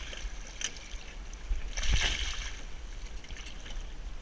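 River water lapping and sloshing around a drift boat over a steady low rumble, with a brief splash about two seconds in, the loudest sound.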